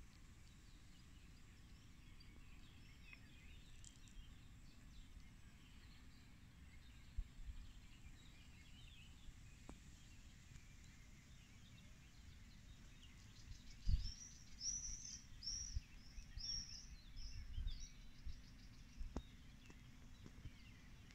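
Small birds chirping faintly, with a brighter run of quick high chirps about two-thirds of the way through, over a low rumble of wind on the microphone with a few bumps.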